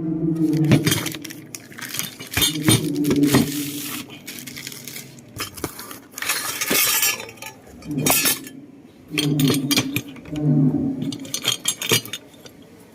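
Metal saw chain clinking and rattling in several irregular spells as it is handled and laid around the guide bar.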